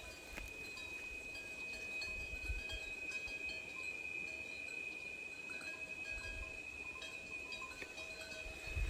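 A steady high-pitched whine held throughout, over a faint outdoor background, with low rumbles on the microphone about two seconds in.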